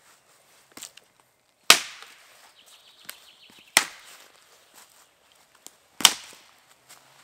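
Firewood being chopped with an axe: three hard strikes into wood about two seconds apart, with a few lighter knocks between them.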